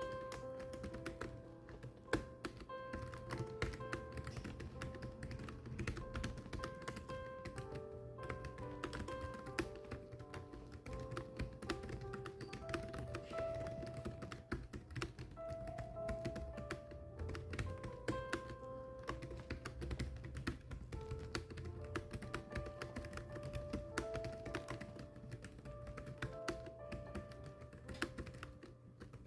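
Continuous fast typing, a dense irregular patter of key clicks, over background music with slow held melodic notes.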